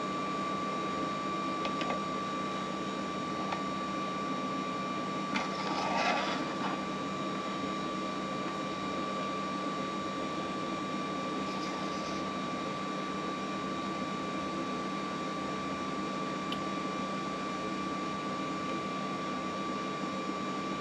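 Steady mechanical hum with a thin, constant high whine, and a brief faint clatter about six seconds in.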